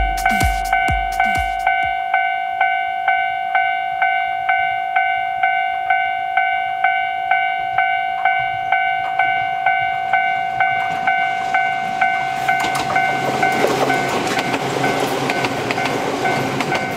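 Japanese level-crossing warning bell ringing steadily at about two strokes a second. About twelve seconds in, a Toyama Chihō Railway train reaches the crossing, and its rumble and wheel noise swell over the bell.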